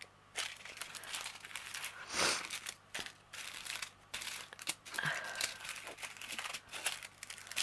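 Small plastic packets of diamond painting drill beads being handled and rustled, with irregular crinkling and a louder swish a little over two seconds in.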